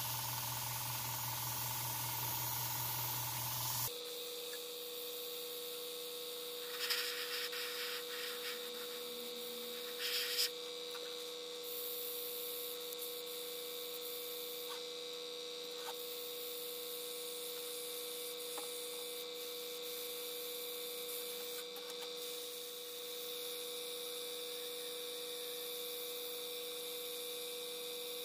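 Gravity-feed airbrush spraying paint into a steel helmet shell, a steady hiss for about the first four seconds. After that a steady hum, with two short bursts of spray about seven and ten seconds in.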